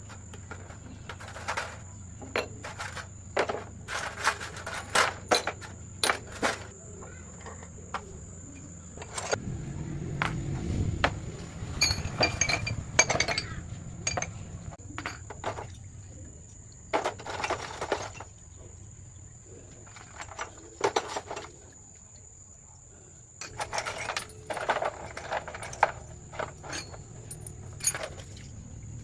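Metal tools and car parts clinking, tapping and scraping in irregular bursts, with a brief low rumble partway through and a steady high insect drone behind.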